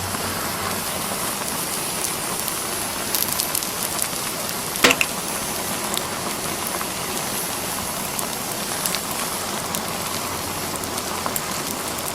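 Fire burning a Gemmy Snoring Santa toy: a steady crackling hiss with scattered small pops and one louder snap about five seconds in.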